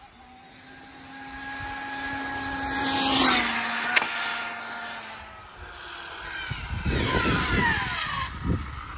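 Arrma Infraction V2 RC car on a speed run on its 15-tooth pinion. Its brushless motor and drivetrain whine grows louder as it closes in, passes about three seconds in and drops in pitch, with a sharp click just after. A second burst of whine falls in pitch, with rough tyre noise, around seven to eight seconds in.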